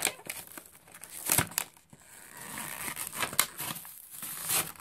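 Toy train packaging being opened by hand: irregular crinkling, rustling and tearing of cardboard and plastic, with a few sharp crackles.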